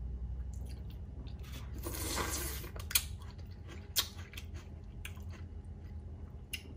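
Close-up eating sounds from pho noodles being chewed, with a soft wet stretch about two seconds in. Sharp clicks of a metal fork against the bowl, the two loudest about three and four seconds in.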